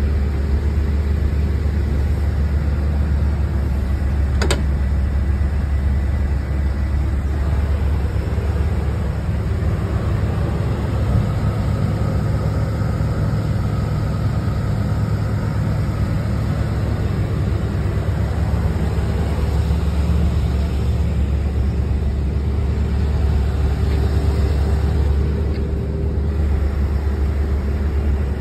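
1981 Corvette's 350 V8 idling steadily, with one sharp click about four and a half seconds in.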